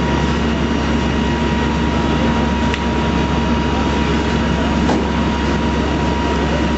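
Fire engine running steadily: a constant heavy engine drone with a steady hum.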